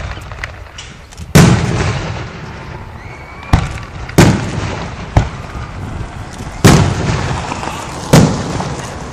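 Aerial fireworks shells bursting overhead: four loud booms, each trailing off in a long rolling echo, with two lighter sharp bangs and a few small cracks in between.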